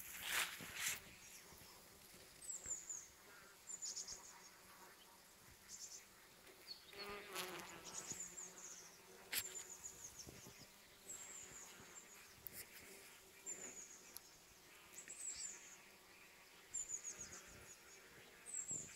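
Bees buzzing faintly at flowering anise hyssop, with one humming close by about seven seconds in. A short high chirp repeats about once a second, and there are a few brief rustling clicks.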